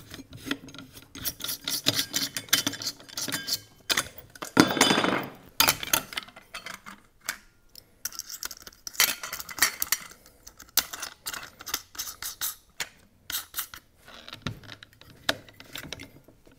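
Hands changing the wheel on a standard threaded-arbor angle grinder: irregular metal clinks, knocks and rubs as the flange nut is spun off, the wheel is swapped and the nut is tightened back down, with a longer scraping rub about five seconds in.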